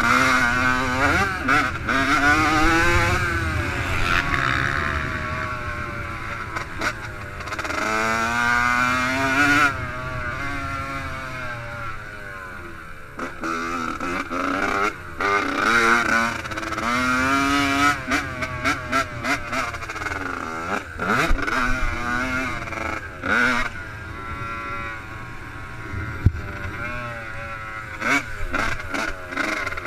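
Yamaha YZ85 two-stroke motocross bike engine revving hard through the gears, its pitch climbing and falling again and again and dropping off sharply whenever the throttle is shut.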